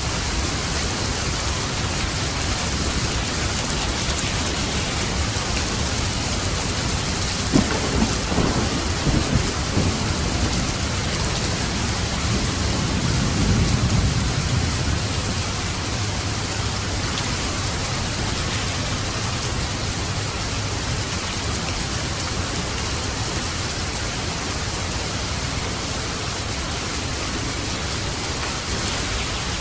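Steady heavy rain. About eight seconds in, thunder cracks several times, then rolls in a low rumble that swells and fades a few seconds later.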